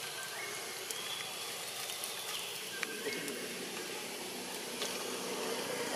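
Outdoor background: a steady hiss with a few faint, short high chirps and light clicks, and a low hum that builds through the second half.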